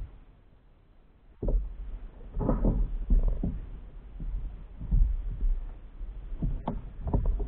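Choppy water slapping against a plastic sit-on-top kayak's hull: irregular low thumps, with a few sharper knocks near the end.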